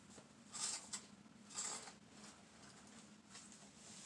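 Faint rustling of copy paper sheets being handled and laid down: two short rustles about a second apart with a light tap between them, over a faint steady low hum.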